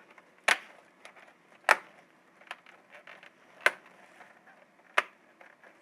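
Plastic clips of a Lenovo G580 laptop's keyboard and casing snapping into place as it is pressed back together: four sharp clicks a second or so apart, with fainter ticks between them.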